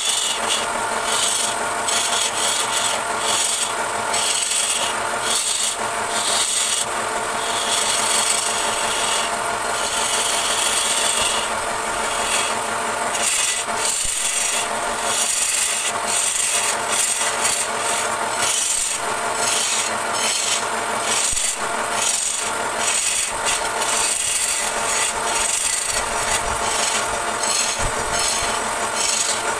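Hand-held turning tool cutting a spinning wooden vase on a wood lathe: a steady rasping scrape of wood being shaved away, with shavings spraying off the work.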